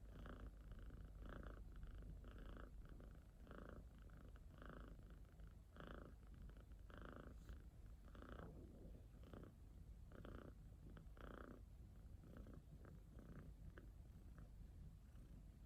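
Domestic cat purring softly, swelling and easing with each breath about once a second and growing fainter near the end.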